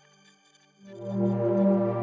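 Background music: soft sustained synthesizer notes, with a louder, fuller chord coming in just under a second in.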